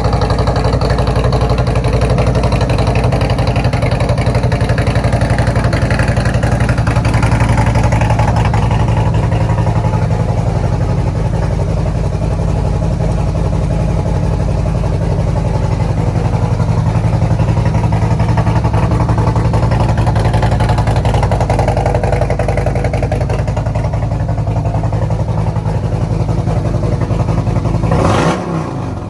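Harley-Davidson Road Glide's 131 cubic inch Milwaukee-Eight V-twin running steadily and loudly through aftermarket exhaust just after a cold start. Near the end the sound drops suddenly.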